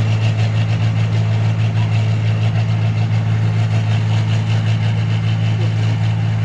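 New Holland combine harvester's diesel engine running at a steady pace, a loud, even low drone.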